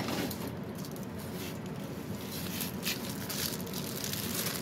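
Plastic bubble mailer rustling and crinkling as it is handled and its cut-open end pulled apart by hand, a run of irregular scratchy crackles.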